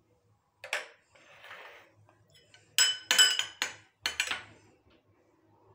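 Steel spoons tapping and clinking against glass serving bowls: a single tap about a second in and a soft scrape, then a quick run of ringing clinks around three to four seconds in.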